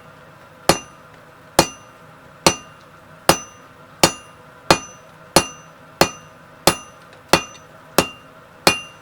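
Blacksmith's hand hammer striking round fullering dies to set a shoulder in hot steel round bar on the anvil. About twelve evenly spaced blows, a little more than one a second, each with a short metallic ring.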